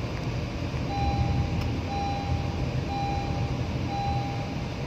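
An electronic warning beeper sounding one steady tone about once a second, each beep about half a second long, starting about a second in, over a low vehicle rumble.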